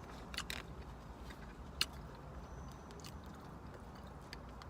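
Quiet eating sounds: a few short clicks and smacks of chewing, over a low steady hum inside a car.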